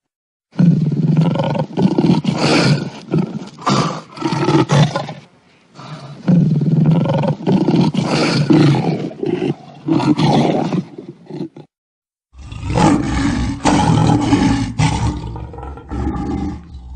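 Lion roaring in three long bouts, each a string of loud pulses, with short silent gaps between them; each bout starts and stops abruptly.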